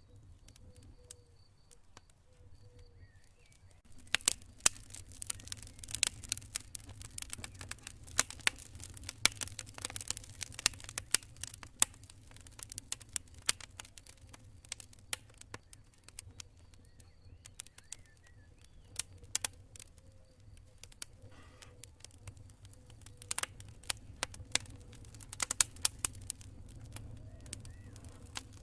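Campfire crackling with frequent sharp pops, starting up about four seconds in after a quieter stretch, over a steady low rumble. Crickets chirp in an even rhythm at the start and again briefly partway through.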